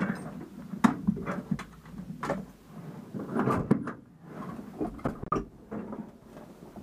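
Scattered clicks, knocks and rustles of hands handling fittings and controls inside a small airplane's cockpit, with no engine running.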